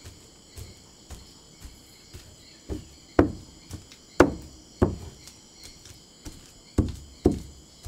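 Cassava being mashed with a hand pounder in a wooden trough, a stage in making chicha de yuca: a run of irregular dull thuds, soft at first and louder from about three seconds in. Steady insect chirring goes on underneath.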